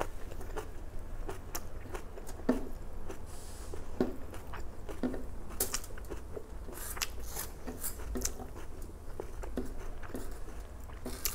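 Close-miked eating sounds: a person chewing noodles, with wet mouth smacks and scattered small clicks as fingers pick food from a foil-lined tray.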